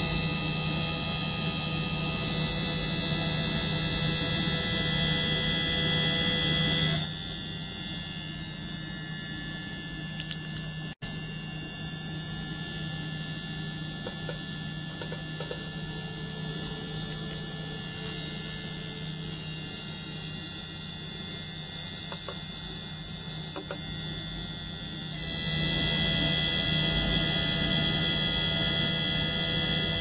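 Small ultrasonic cleaner running with a small pump circulating water through its tank: a steady electrical hum with several fixed high tones. From about seven seconds in until about twenty-five seconds in, the high tones are quieter, and the sound cuts out for an instant about eleven seconds in.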